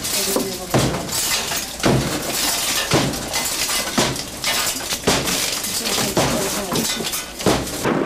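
Repeated smashing blows, about one a second, with glass breaking, typical of windows and barricades being broken in during a house eviction.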